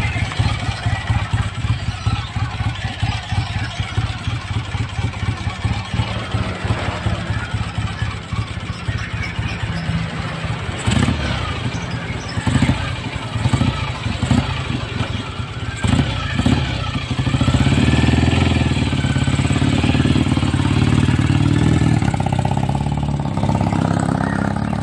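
BSA A65L parallel-twin motorcycle engine running with a fast, pulsing beat and throttle blips, then pulling away under load and riding off, louder and steadier in the second half.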